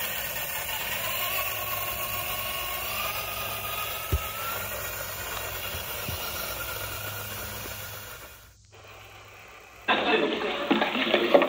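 Small electric motor and gear train of a 1/6-scale RC crawler jeep whining with a hiss as it drives along a dirt trail, the whine rising slowly in pitch, with a single click about four seconds in. Near the end the sound cuts out briefly, then a louder, rougher rattling begins.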